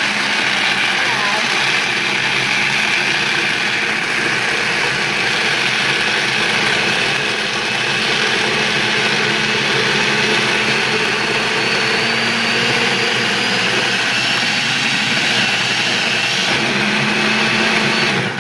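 Hamilton Beach countertop blender running steadily at speed, puréeing dry dog kibble soaked in water with blueberries into a thick, smooth slurry.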